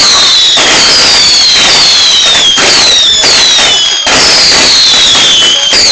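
Fireworks finale: a dense barrage of crackling bangs with repeated high whistles, each falling in pitch, about one every second.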